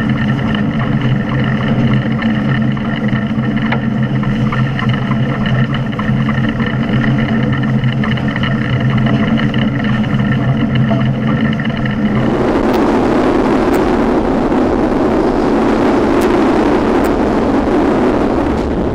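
Tkt48 steam tank locomotive under way: a steady drone of several held tones sounds for about twelve seconds and cuts off suddenly, leaving an even rushing noise of the running train.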